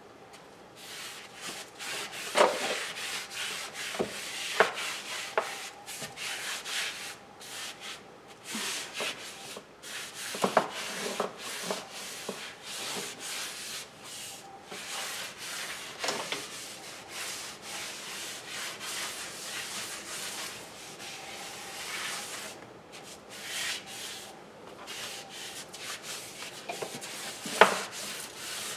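Dust being swept with a broom: continuous scratchy bristle strokes, broken by several sharp knocks.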